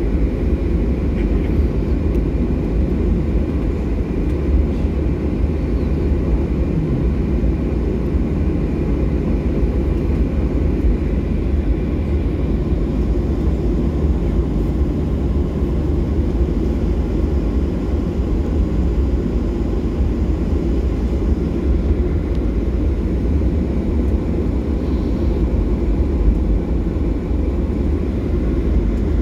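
Cabin noise of a Boeing 737 MAX 9 airliner taxiing: a steady low rumble from its CFM LEAP-1B engines at taxi power, with a faint high whine above it.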